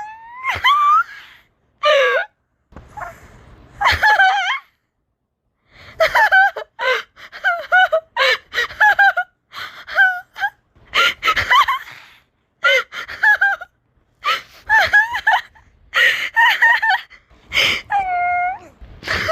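A person laughing hard in repeated short, high-pitched bursts with gasping breaths between them, and one longer held squeal near the end.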